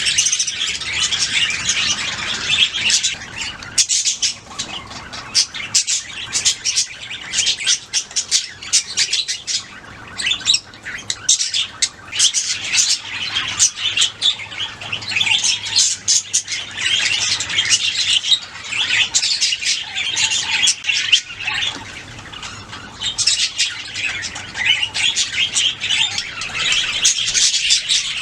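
Budgerigars chirping and warbling in a fast, continuous chatter of high chirps and squawks.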